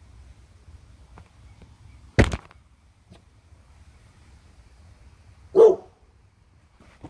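Dog barking twice, short single barks about two seconds in and again about three and a half seconds later.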